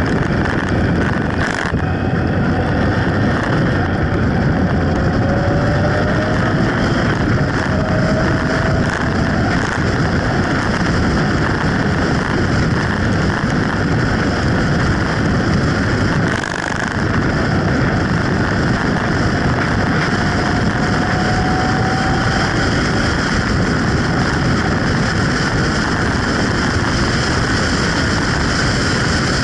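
Steady wind rush on the microphone of a camera riding at road speed on a motorcycle, with engine and road noise underneath. Twice a faint rising engine note comes through as the bike speeds up.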